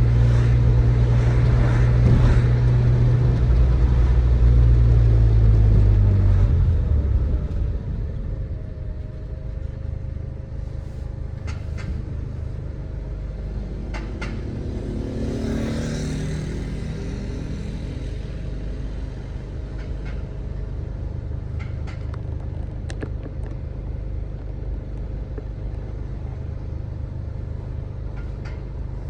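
Turbocharged Audi A3 1.8T 20V four-cylinder with a 3-inch stainless exhaust, driving: a loud low drone for the first several seconds, then the level drops about seven seconds in and it settles into a quieter steady drone, with a brief swell in the middle.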